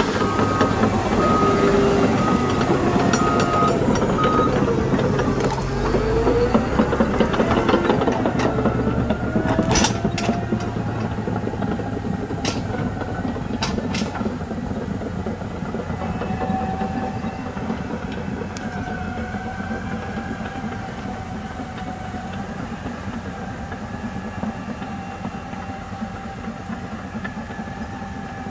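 Cat D6T XW crawler dozer running under load, its steel tracks clanking, with a few sharp clanks around the middle. Its back-up alarm beeps steadily through the first four seconds or so, and the machine grows gradually quieter as it moves away.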